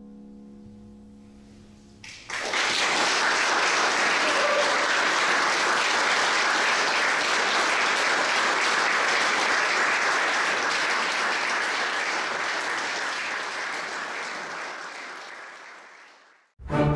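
A grand piano's last notes dying away, then an audience bursting into applause about two seconds in and clapping steadily, fading out near the end.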